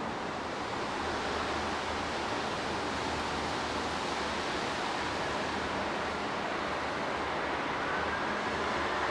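Strong gusty wind rushing across the microphone, with a throbbing low rumble from the buffeting.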